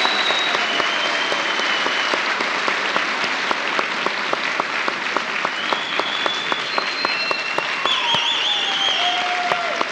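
Audience applause with dense clapping, and a few high whistles, one of them warbling, over the clapping.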